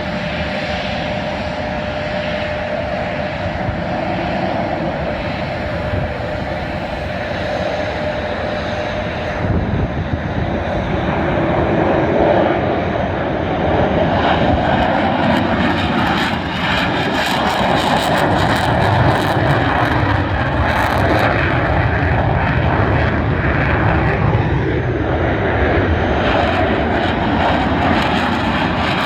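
McDonnell Douglas F-15C Eagle jet fighters' twin Pratt & Whitney F100 turbofan engines at takeoff power, a loud, continuous jet noise that grows louder about twelve seconds in and takes on a crackling edge for several seconds after that.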